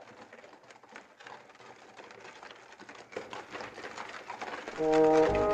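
Faint, rapid, irregular mechanical clicking and ticking that slowly grows louder. Near the end, music comes in with held notes and becomes the loudest sound.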